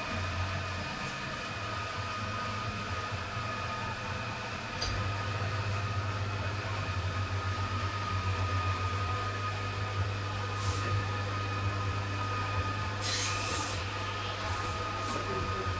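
A steady low mechanical hum that grows louder about five seconds in, with a faint steady high tone over it and a few short hissy rustles in the second half.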